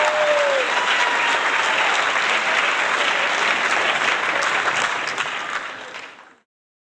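Audience applause: a crowd clapping steadily, fading out near the end.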